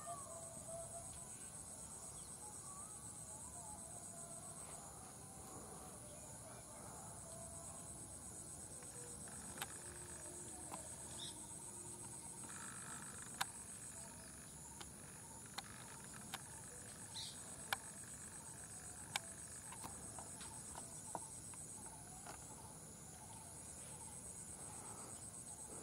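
Faint, steady high-pitched chorus of insects such as crickets, with a few faint bird chirps in the first seconds. About a dozen sharp clicks stand out as the loudest sounds in the middle part.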